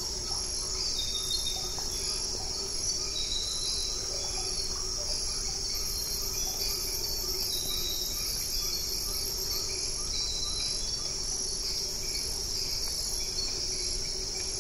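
Dense chorus of jungle insects: a steady high-pitched shrill with a faster pulsing trill above it and a few faint short chirps.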